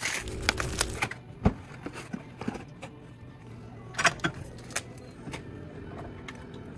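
Sharp clicks and knocks of skis and alpine bindings being handled and clamped into a binding-mounting jig, the loudest knock about a second and a half in and a cluster of clicks about four seconds in.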